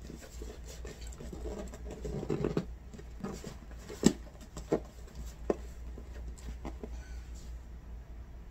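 A cardboard gift box being lifted and handled: soft rustling and a few light taps and clicks of hands on the cardboard.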